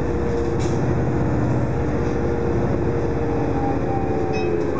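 Interior sound of a dieselized New Flyer C40LF city bus under way: its Detroit Diesel Series 50 inline-four diesel engine and Allison automatic transmission running steadily, with road noise, as heard from the passenger cabin.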